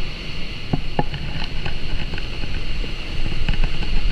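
Wind rushing over the microphone and water spraying off water skis towed at speed behind a boat, with a couple of sharp knocks about a second in.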